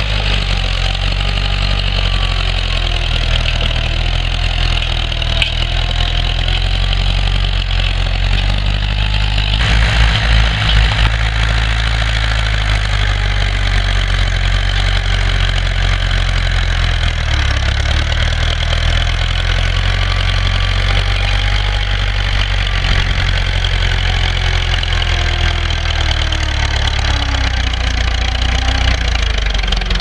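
International B-250's four-cylinder diesel engine running steadily under load as the tractor pulls a two-furrow reversible plough through the ground. The engine note shifts about seventeen seconds in, and a short burst of low thumping comes about ten seconds in.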